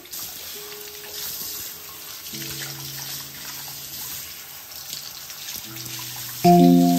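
Bathroom sink tap running, water streaming and splashing as hands rinse a wet cat's legs under it. Faint music comes in about two seconds in, and loud music starts near the end.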